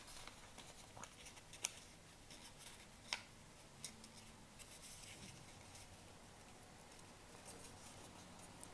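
Faint rustling and crinkling of a sheet of printer paper being folded and pressed flat by hand, with a few soft, sharp ticks scattered through.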